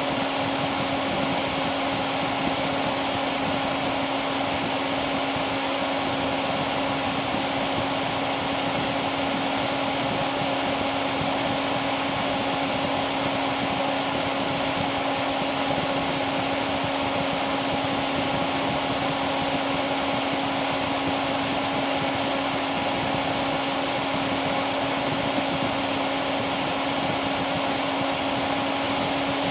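Dell Dimension E521's BTX CPU cooling fan running at high speed, ramped up by the CPU being held at 100% load but not yet at its top speed. A steady rush of air with a steady hum over it.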